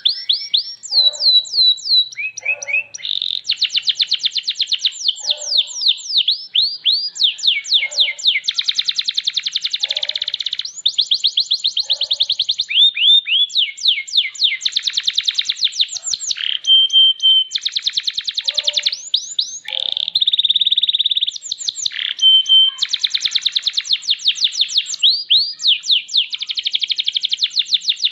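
Domestic canary singing a long, unbroken song of fast rolling trills, each phrase a rapid run of sweeping notes that changes speed from one phrase to the next, with a few short held whistles between.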